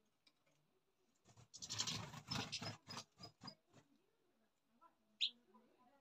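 Rustling and crackling with a run of sharp ticks that thin out after a couple of seconds: a European goldfinch tugging and pecking at plant seed heads. Near the end a bird gives a single short high chirp.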